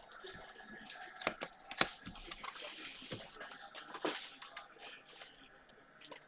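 Faint rustling and crinkling of trading-card packs and wrappers being opened and handled, with a few sharp clicks, the loudest about four seconds in.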